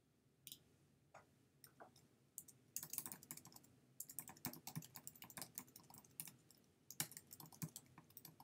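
Faint typing on a computer keyboard: a few scattered keystrokes at first, then quick runs of keystrokes with short pauses from about two and a half seconds in, as text is entered into a web form.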